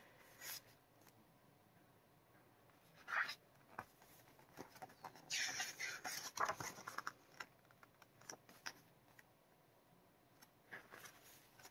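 Pages of a glossy album photobook being handled and turned: faint paper rustles and flicks, with a longer stretch of rustling as a page is turned about five to seven seconds in.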